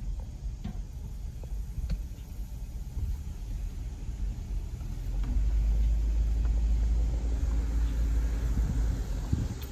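Car driving slowly, heard from inside the cabin: a steady low engine and road rumble that grows much louder about five seconds in and eases near the end, with a few light knocks.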